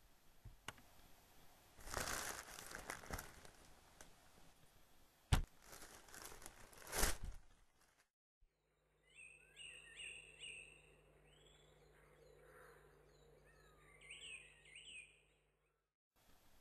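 Rustling, crinkling noise with a few sharp knocks, then after a break birds chirping over a steady low hum.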